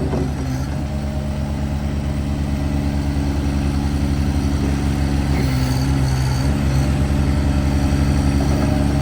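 Bobcat MT100 walk-behind skid steer loader's engine running steadily with an even low pulse, its tone shifting briefly about halfway through.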